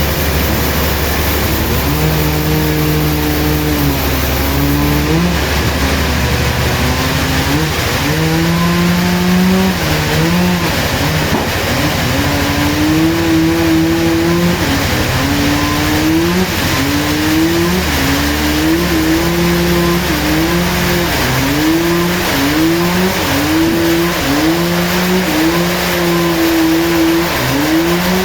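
Sawmill machinery running under load, its pitch dropping and climbing back again and again as it bogs in the cut, the dips coming faster in the second half, over a steady low hum.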